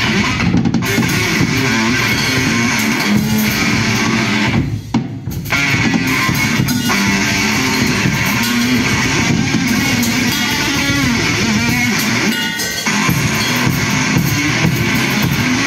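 Live electric bass guitar played through effects pedals together with a drum kit, instrumental music with a short break about five seconds in.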